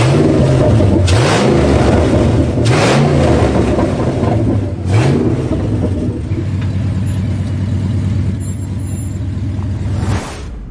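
Batmobile replica revving several times, its low drone sweeping up and down in pitch, then running at a steady pitch before it cuts off suddenly near the end.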